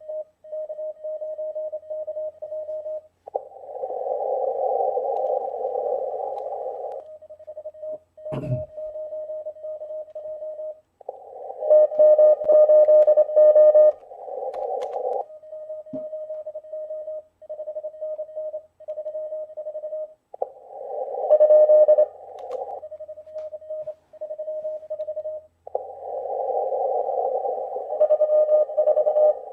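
Morse code (CW) from an HF contest radio played through laptop speakers: a steady single-pitched tone keyed on and off in dots and dashes, some stretches sitting in band hiss and a few passages louder and rougher. A short thump comes about 8 seconds in.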